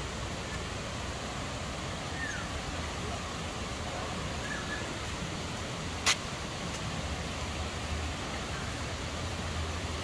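Steady rush of flowing river water. A single sharp click comes about six seconds in, and a few faint short chirps sit above the rush.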